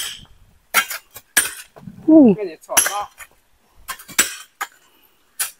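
Steel hoes and a hammer striking stony ground and rock, making irregular sharp metallic clinks from several people working at once. A short voice call falls in pitch about two seconds in.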